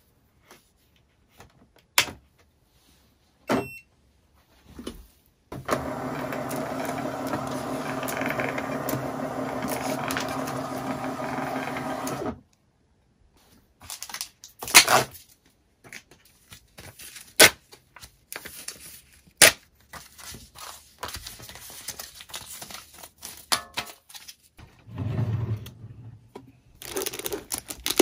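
Handling sounds on a work table: a few sharp clicks and knocks, then a small machine hums at a steady pitch for about seven seconds and stops abruptly, followed by irregular taps, clicks and rustling.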